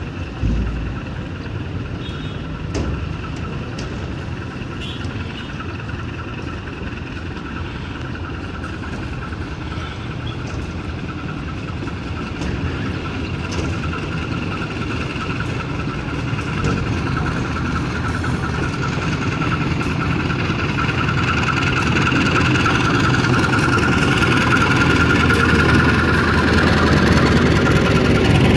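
Diesel locomotive engine running as it pulls out with a works train, getting steadily louder as it approaches and passes close by. A steady high whine sits over the engine rumble.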